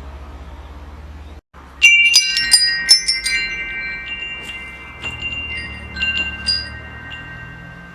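Wind chimes ringing: after a brief cut-out, a quick flurry of bright metallic strikes about two seconds in, then a few scattered strikes, with several clear tones ringing on between them.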